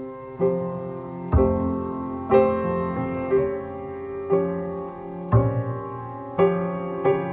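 Piano music: slow chords struck about once a second, each ringing and fading before the next.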